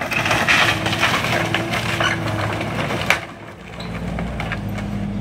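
Wooden house structure cracking and splintering as it is torn down: dense crackling with a single loud crack about three seconds in, after which the breaking dies down. A machine engine runs steadily underneath.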